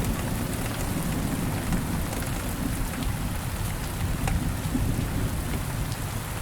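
Steady rain falling, an even hiss with a heavy low end and a few sharper drop ticks.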